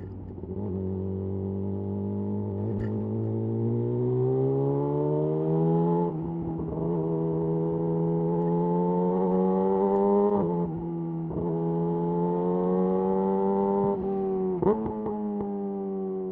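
Yamaha YZF R6's inline-four through a de-catted Akrapovic slip-on exhaust, pulling smoothly up through the revs. The pitch drops at two gear changes, about six and ten seconds in, then the engine holds a steady cruise. A brief sharp burst comes near the end.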